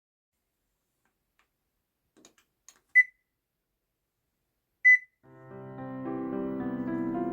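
A few faint clicks, then two short electronic beeps from a household appliance, about two seconds apart. Background piano music fades in after them.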